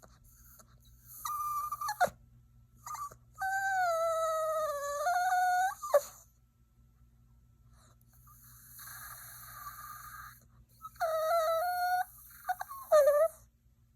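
Yorkshire terrier puppy whining: a string of high-pitched whines that waver in pitch, the longest lasting about two and a half seconds. A softer, breathy whimper comes in the middle, followed by two more short whines near the end.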